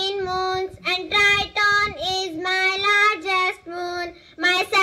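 A child singing a melody in held notes, phrase after phrase with short breaks between them.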